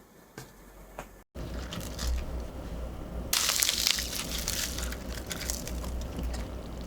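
Dense crackling, crunching noise with scattered clicks, rising into a louder hissing burst about three and a half seconds in.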